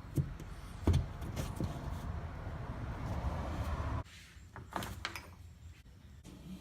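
Knock, then about three seconds of steady scraping that cuts off suddenly, followed by a couple of sharp clicks: the sound of handling and sliding things while a beer fridge's power cord is fed through a hole in the wall.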